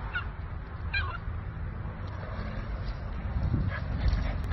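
Cavalier King Charles Spaniel puppies giving short, high yips as they play together, one near the start and another about a second in, with a fainter one later. A low rumble runs underneath and grows louder near the end.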